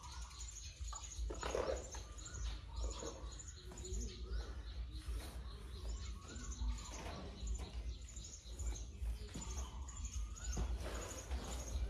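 Small birds chirping and twittering over and over, with short rising and falling calls among them, above a steady low rumble.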